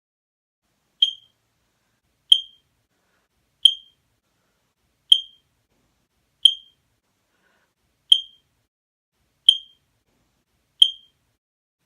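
Fire alarm chirping: eight short, high, identical chirps about one every second and a half, beginning about a second in, each fading out quickly.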